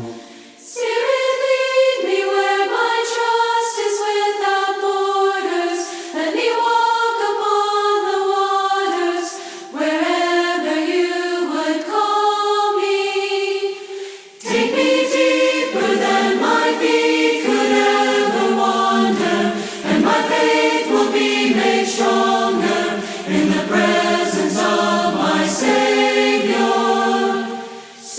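A cappella group of voices singing in parts, in phrases with short breaks between them. About halfway through, lower voices join in and the harmony fills out.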